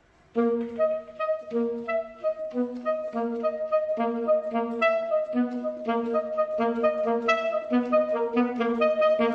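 A wind band instrument playing a lively melody in a steady run of short notes, starting about half a second in.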